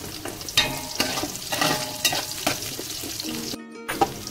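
Onions, spices and cashews frying in sunflower oil in a large cooking pot, with the scrape of a spoon stirring them, over background music. The sound cuts out completely for a moment near the end.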